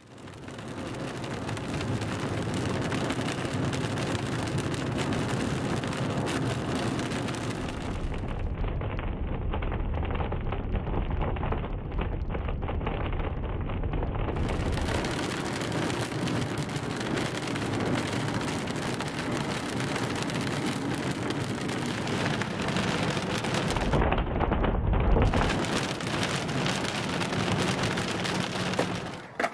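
Heavy rain falling on a car's windshield and roof, with low rumbles of thunder, the loudest about three-quarters of the way through.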